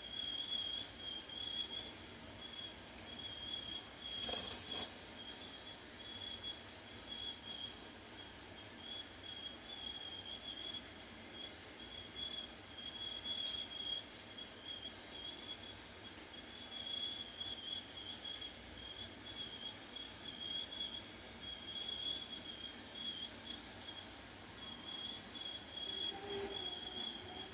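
Faint, steady trilling of a cricket, with a brief clatter about four seconds in and a few light clicks.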